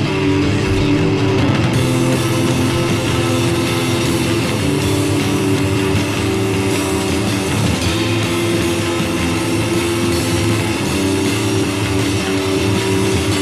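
Noise pop band recording: loud electric guitars over bass and drum kit, with cymbals filling in about two seconds in.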